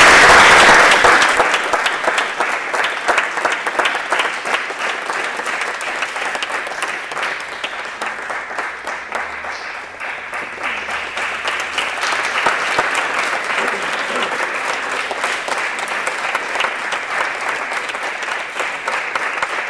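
Audience applauding: dense, continuous clapping, loudest at the start, then easing to a steady level that carries on.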